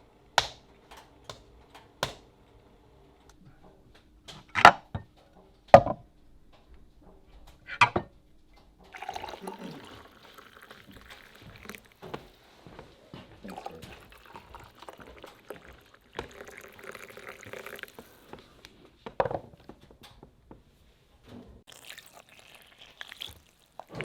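Kitchen sounds of pancake-making: a handful of sharp knocks and clinks of utensils and dishes, then a longer stretch of liquid sounds, pouring and mixing, with another knock partway through.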